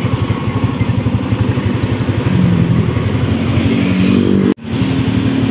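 Motorcycle engine running with a steady throbbing pulse; a second engine note rises about two seconds in and holds until the sound cuts out for an instant near the end.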